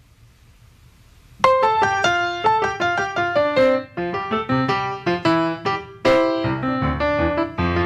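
Grand piano played solo. After a brief pause with the last notes dying away, a new passage starts sharply about a second and a half in, a quick succession of notes with one more strong accent near the end.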